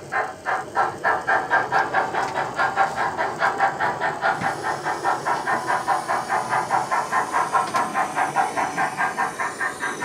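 Sound-equipped model of the Coronation Scot steam locomotive running, its speaker playing a steady run of rapid exhaust chuffs at about five to six a second.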